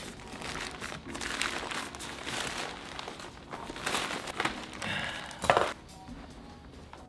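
Crinkling and rustling of loose paper pet bedding as it is shaken out of its plastic bag into a plastic cage tray and spread by hand, with a louder crackle about five and a half seconds in.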